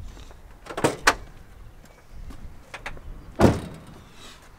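A few sharp clunks from a car's body, two close together about a second in and a heavier, louder one about three and a half seconds in, as the BMW E36's hood is unlatched to get at the engine.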